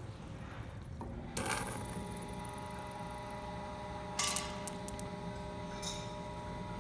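Surface grinder's coolant pump switched on with a click about a second and a half in, then running with a steady hum as coolant starts to flow from the nozzle. A few sharp clicks come about four and six seconds in.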